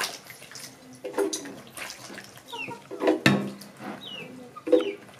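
Hands swishing tomatoes and peppers in a bowl of water and dropping them into a blender jar, with small clicks and splashes. Birds chirp in short falling whistles, and chickens cluck in short louder calls about a second in, at three seconds and near the end.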